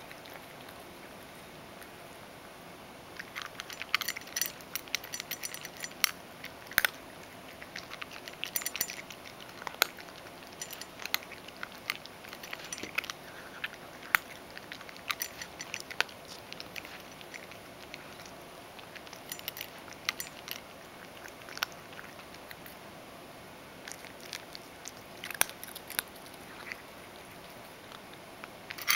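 Ragdoll cat eating from a stainless steel bowl: irregular runs of crunching and chewing, with a few short pauses.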